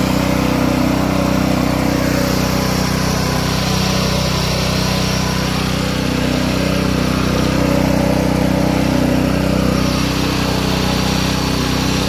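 Gas engine of an EDCO walk-behind wet concrete saw running steadily.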